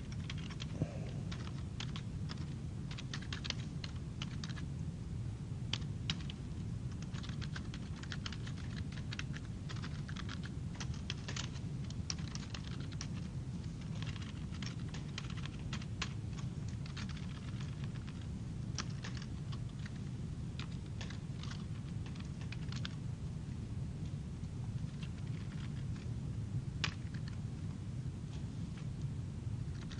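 Computer keyboard typing in quick runs of key clicks, dense through the first half and sparser later, over a steady low hum.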